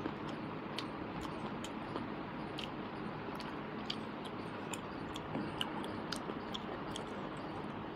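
Close-miked chewing: irregular soft mouth clicks and smacks over a steady background hiss.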